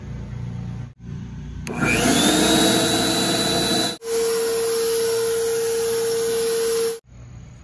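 WORX 600 electric leaf blower starting up about two seconds in, its motor whine rising and then levelling off, then running steadily while blowing leaves across grass. In the later stretch it holds a steady single-pitched hum, and the sound cuts off abruptly near the end.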